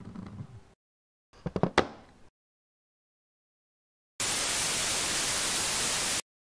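A quick cluster of sharp knocks, then about two seconds of loud, steady static hiss like an untuned TV that starts and cuts off abruptly.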